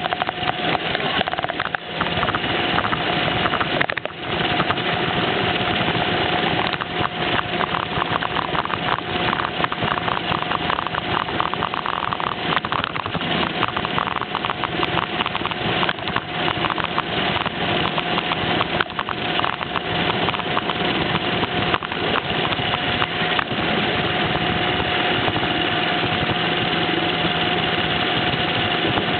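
Roomba robot vacuum running right under the microphone: a steady motor hum with a dense, irregular clatter of small rattles and knocks as it drives over the floor.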